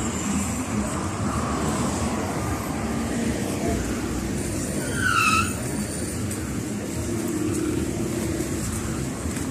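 Road traffic: cars passing close by on a city street, a steady rush of engines and tyres, with a short high-pitched squeal about halfway through.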